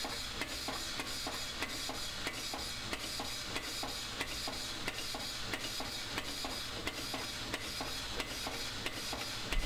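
Air-operated sheet metal shrinker (HDAS-4) working the edge of a 20-gauge galvanized steel panel, a fast, even run of light clicks as the jaws cycle and grip the steel while the panel is moved along to taper the shrink.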